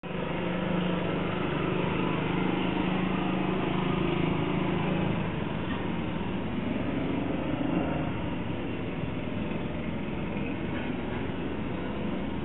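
Boat engine running, heard through a CCTV recorder's narrow-band microphone over steady noise; its hum is strongest for the first five seconds or so and then fades.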